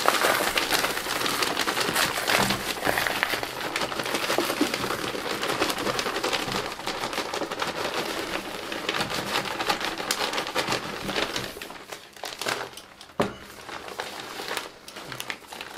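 Soil being poured and spread into a worm-breeding tank: a continuous rustling, crackling pour full of small gritty clicks, which thins out after about eleven seconds, with one sharp knock about thirteen seconds in.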